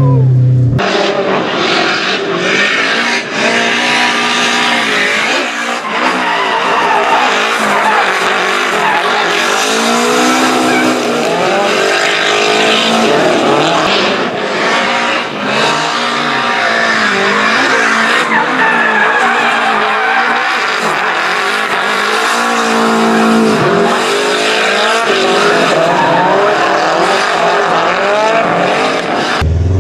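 Nissan S13 drift car with a turbocharged SR20DET engine, its revs rising and falling again and again through a drift. The tyres skid and hiss on wet pavement under the engine.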